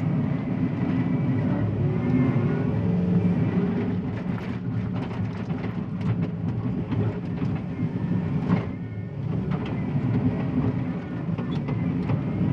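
John Deere 333E skid steer's diesel engine working steadily under load while digging through hard clay. Intermittent clanks and rattles from the machine run through the middle of the stretch.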